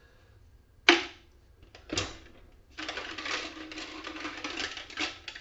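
A sharp knock about a second in and a second one at two seconds, then a dense clatter of rapid clicks and rattles as copper wire is handled at a plastic jug.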